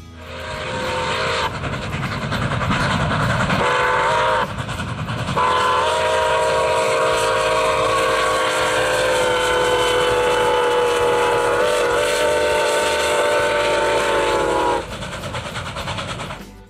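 Milwaukee Road 261, a 4-8-4 Northern steam locomotive, blowing its chime whistle. It gives a few shorter blasts in the first five seconds, then one long blast held for about ten seconds that stops near the end. Under it is the rumble of the running locomotive and train.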